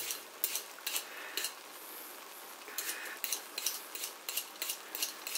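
Carrot being peeled on a cutting board: a run of short, irregular scraping strokes, pausing briefly about two seconds in and coming quicker near the end.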